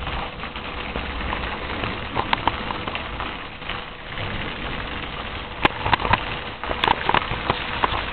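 Steady hiss of thunderstorm rain, with a handful of sharp taps between about five and a half and eight seconds in.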